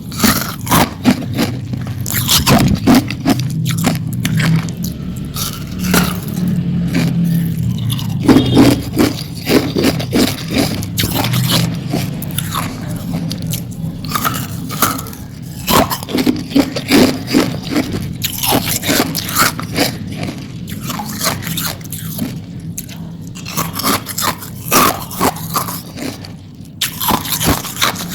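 Hard ice being bitten and chewed close to the microphone: repeated loud, sharp crunches one after another.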